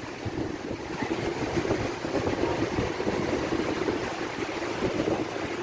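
Fast, strong-flowing mountain river rushing over rocks, a steady roar of white water.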